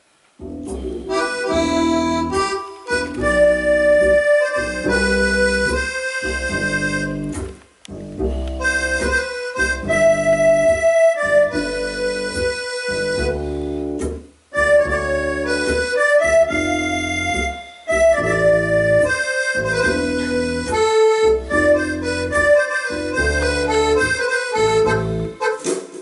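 Accordion playing a tune with held melody notes over rhythmic bass chords, pausing briefly between phrases about 8 and 14 seconds in.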